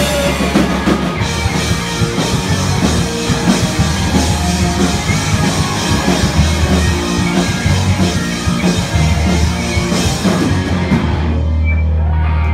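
Live rock band playing loud, with distorted electric guitars, bass and a drum kit. About eleven seconds in the drums and cymbals stop and a low note is left ringing from the amps as the song ends.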